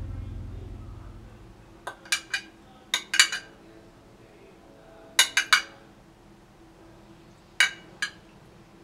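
Metal spoon clinking against a glass dish while curry is scooped out and served. The clinks come in four short clusters of two or three.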